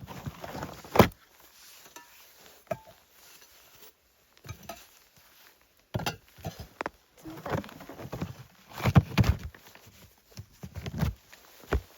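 Footsteps crunching through deep snow, irregular and uneven: a hard step about a second in, a few quiet seconds, then a run of heavier crunching steps in the second half.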